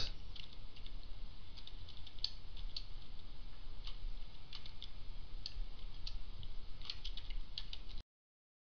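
Typing on a computer keyboard: scattered, faint keystroke clicks over a low steady background hum. About eight seconds in, the sound cuts out completely.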